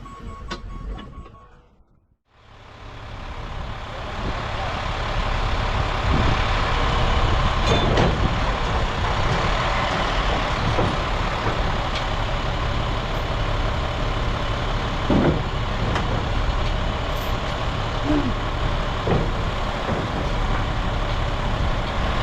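Heavy diesel truck engine running steadily, starting about two seconds in, with a few brief knocks or hisses over it.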